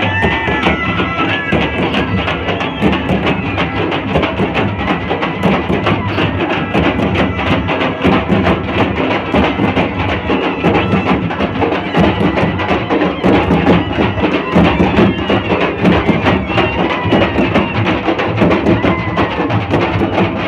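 A group of large double-headed barrel drums (dhol) beaten together with sticks in a dense, steady beat. A reed pipe with a flared bell plays a held tune over them at the start.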